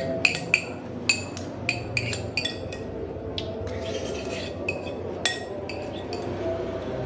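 Metal spoon and fork clinking and scraping against a ceramic noodle bowl while eating: a quick run of sharp clinks, thinning out after about five seconds.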